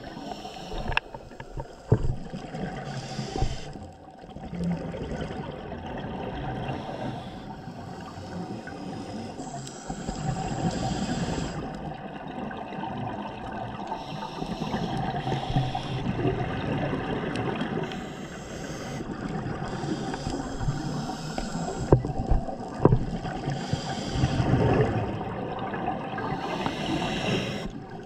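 Muffled, continuous water noise picked up by a camera underwater, swelling and fading, with a few sharp clicks or knocks near the start and again near the end.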